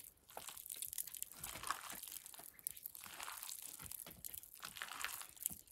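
Hands squeezing and mixing a boolani filling of boiled potatoes and chopped greens in a steel bowl: faint, irregular mashing and crackling.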